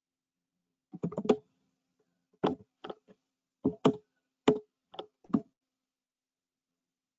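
A run of about eight sharp clicks and knocks, irregularly spaced over four or five seconds with a quick cluster at the start: keys and buttons being pressed on a computer keyboard and mouse.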